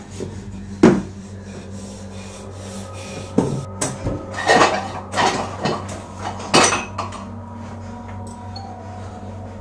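A series of sharp knocks and clattering thuds, one about a second in and a cluster in the middle, over a steady low hum.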